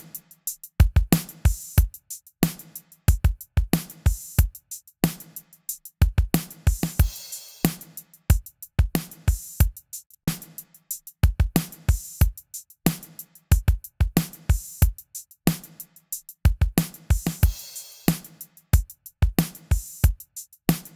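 Drum loop of kick, snare and cymbals playing back through a software vari-mu compressor plugin that is compressing it; a steady, even rhythm of sharp hits.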